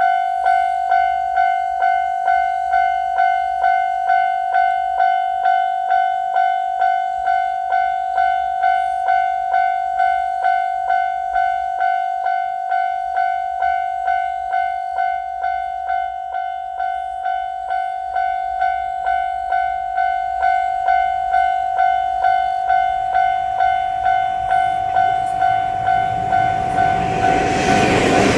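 Japanese level crossing warning bell ringing steadily at about one and a half strikes a second, the signal that a train is approaching. Near the end the passing train's rumble rises up loud under it.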